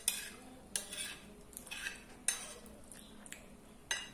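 Metal spoon scraping and clinking against a ceramic plate while mixing rice, beans and steak together: about eight short, sharp scrapes and clinks at uneven intervals.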